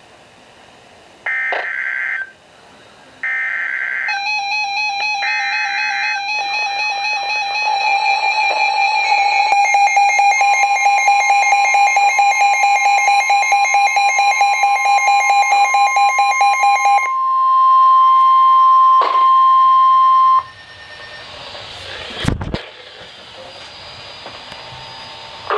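Emergency Alert System tones for a National Weather Service warning: three short buzzing SAME header data bursts, joined about 4 s in by a rapidly pulsing electronic alarm beep that runs to about 17 s, and overlapped from about 10 s in by the steady 1050 Hz weather-radio warning tone, which holds for about ten seconds and cuts off. After that comes a low hiss with one sharp click.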